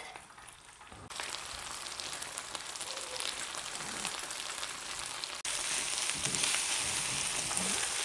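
Rice and gopchang frying in rendered gopchang fat in a stainless-steel pan, a steady sizzle. It starts about a second in and turns suddenly louder and hissier about five seconds in.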